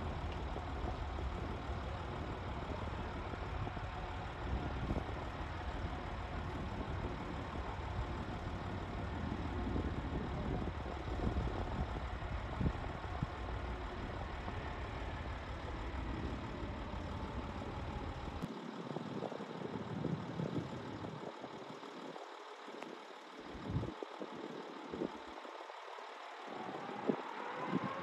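Distant jet airliner engine noise: a steady, even roar with a deep rumble that drops away about two-thirds of the way through. Near the end a rising whine begins.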